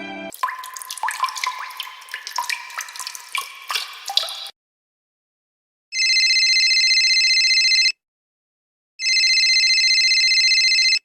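About four seconds of bubbling, dripping water sounds. After a short silence come two identical steady electronic tones, each about two seconds long and a second apart.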